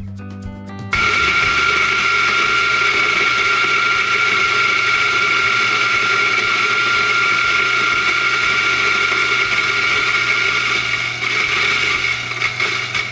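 Electric single-dose coffee grinder with 54 mm flat burrs running, a loud steady motor whine with a high hum, starting about a second in and stopping shortly before the end.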